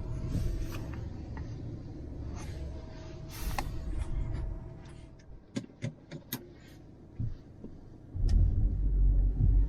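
Car driving, a low steady rumble of engine and road noise. It dies down midway, where a few sharp clicks are heard, and comes back louder about eight seconds in.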